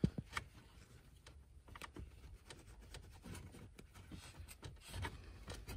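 Faint handling noises under a dashboard: scattered light plastic clicks and rustling as fingers work the release tab of a wiring connector, with one sharper click right at the start.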